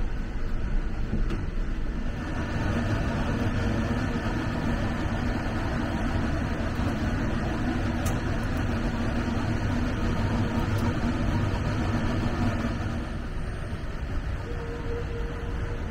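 Interior running noise of the JR East E261 series Saphir Odoriko train: a steady rumble with a low hum, easing slightly near the end.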